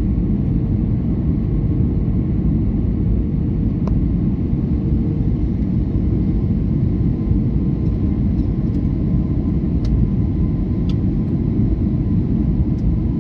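Steady low roar of engine and airflow noise inside a passenger aeroplane's cabin in flight, with a faint steady hum and a few light clicks.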